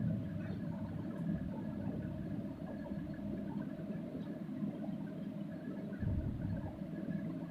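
Steady low background rumble and hum with no speech, swelling briefly about six seconds in.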